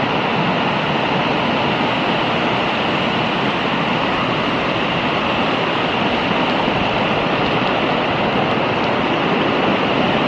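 Loud, steady rush of water with no break in it.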